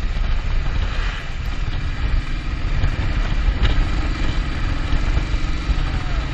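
Motorcycle engine running steadily as the bike rides along the road, with wind rushing over the microphone.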